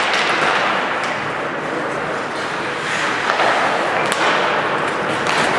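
Ice-rink crowd noise during hockey play: a steady wash of spectators' voices and cheering, with a few sharp clacks of sticks and puck.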